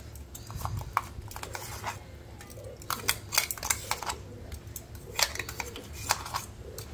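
A steel spoon scraping and clinking against the inside of a stainless-steel mixer-grinder jar while scooping out thick green chilli and garlic paste: a run of irregular clicks and short scrapes.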